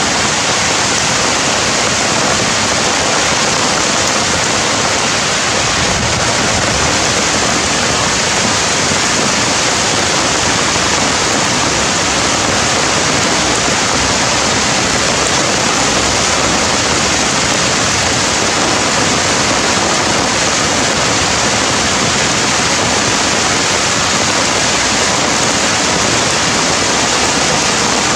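Steady, even rush of water noise that never changes in level, with no bird calls standing out.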